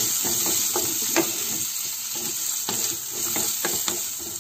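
Sliced onions sizzling in hot oil in a wok, stirred with a wooden spatula: a steady frying hiss with repeated scraping strokes about three times a second.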